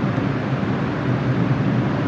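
Steady rumble of a New York City subway train in the station.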